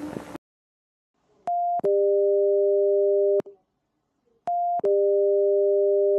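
Electronic emergency-alert attention tone: a short single beep, then a longer, lower two-tone chord. The pattern plays twice, about three seconds apart.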